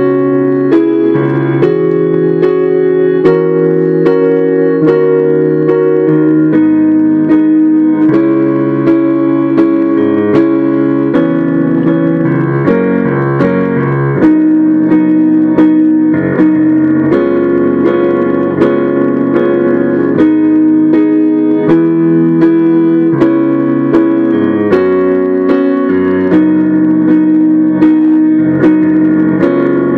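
Upright piano being played: a continuous flow of notes over held, changing chords.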